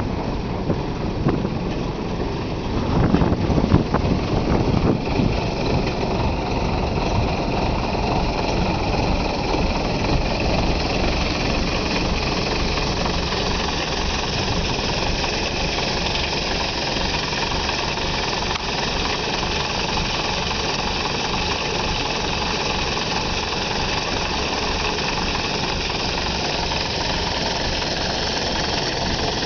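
Rear-mounted diesel engine of an old Hino bus idling with its engine hatch open, a steady, evenly pulsing run. About three seconds in it briefly runs louder and rougher, then settles back to an even idle.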